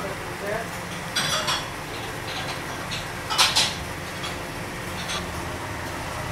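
A knife clinking against a metal wire strainer basket and tray while cooked sheep head meat is cut into it: a few sharp metallic clinks, the loudest about a second in and again about three and a half seconds in, over a steady low background hum.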